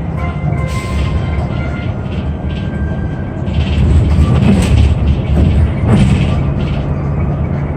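City bus cabin while driving: steady engine and road noise, with a couple of brief rattles about four and a half and six seconds in.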